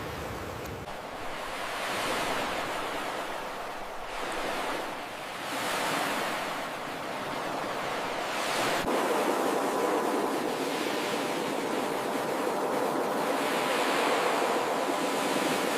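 Ocean surf: waves breaking and washing in, the rush swelling and ebbing several times.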